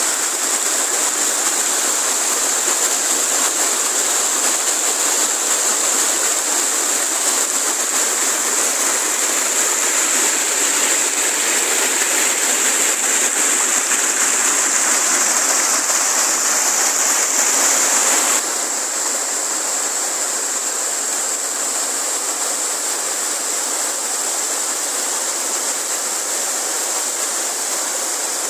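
A mountain stream rushing and splashing over boulders in small cascades, a steady loud rush of water. It drops suddenly to a somewhat lower level about two-thirds of the way through.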